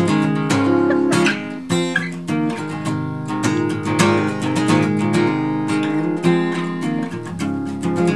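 Cutaway acoustic guitar strummed, ringing chords in a steady rhythm: the instrumental introduction before the singing begins.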